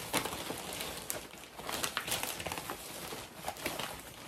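Plastic snack bags crinkling and rustling as they are pulled out and handled, a continuous crackle of many small sharp crinkles.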